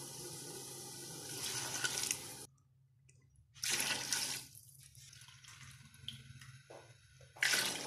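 Masala frying in oil in a large pot with a steady sizzle; after a short silent break, water is poured in with a loud splash about four seconds in, and again near the end.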